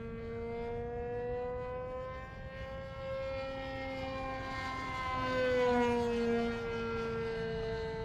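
Uproar RC airplane's motor and propeller whining steadily overhead. The pitch rises a little, then falls about five to six seconds in, where it is loudest, as the plane passes.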